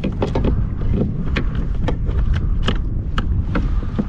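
Wind buffeting the microphone as a steady low rumble, with a string of irregular sharp knocks and slaps, about two or three a second, from handling on the kayak.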